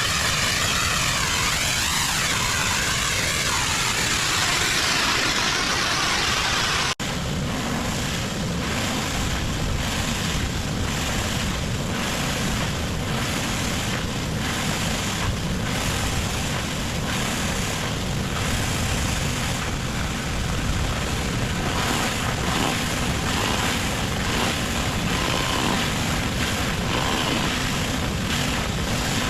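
Pressure washer running, its high-pressure spray hissing against the surface being cleaned. The sound changes abruptly about seven seconds in, with more low rumble after the change.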